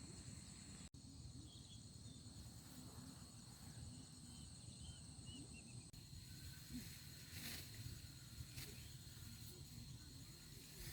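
Faint outdoor field ambience: a steady high-pitched insect drone, with a few faint short chirps in the first half and a couple of soft brief rustles later on.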